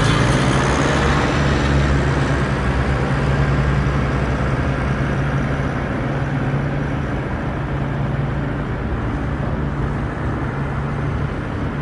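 Tractor engine running steadily with a deep, even note, slowly getting quieter as its higher sounds die away.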